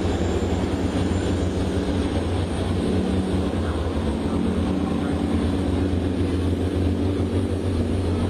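River tugboat's diesel engine running hard under load, a steady low drone, over the rush of its churning propeller wash.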